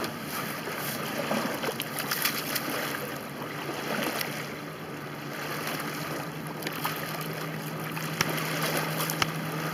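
Wind and small waves lapping at a lake shore, with a few brief splashes and knocks as hands work in the shallow water.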